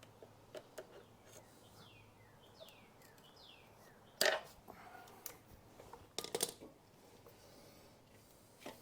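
Cable snips cutting a nylon zip tie: one sharp snap about four seconds in, followed by a short cluster of clicks and rattles from the tool and plastic being handled. Birds chirp in the background, with several short falling calls.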